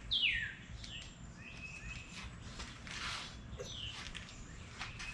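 A bird calling: several clear calls that each slide down in pitch, the first the loudest, with a short hiss about three seconds in.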